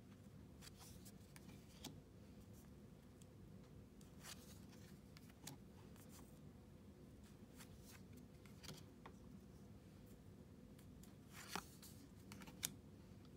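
Pokémon trading cards slid one from the front to the back of a small stack in the hands: faint, scattered scrapes and flicks of card on card, with two sharper ticks near the end. A low steady room hum runs underneath.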